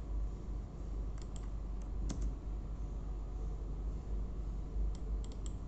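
Computer keyboard keys clicking in a few scattered taps as text is typed, with a quick run of keystrokes near the end, over a steady low hum.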